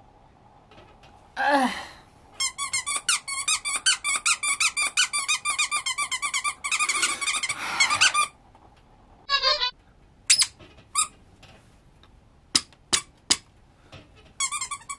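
Squeaker in a plush snake dog toy squeezed over and over, about four or five squeaks a second for some six seconds. Then come several single, separate squeaks a second or so apart.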